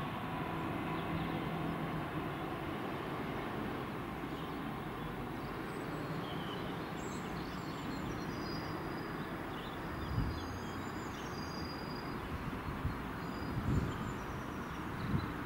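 Electric multiple unit train moving away down the line: a steady rumble of wheels on the track with a faint hum, and birds chirping over it. A few soft low thumps come near the end.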